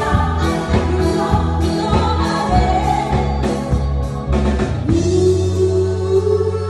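Live band music: a woman singing over electric guitar, keyboard and a drum kit. About five seconds in the drumbeat stops, leaving held chords and a long sustained note.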